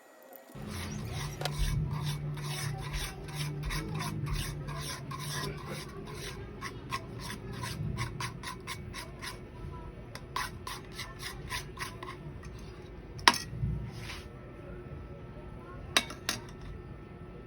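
Spatula scraping and stirring sticky glutinous rice dough with sugar in a pan, repeated rasping strokes about two to three a second, with two sharp knocks near the end.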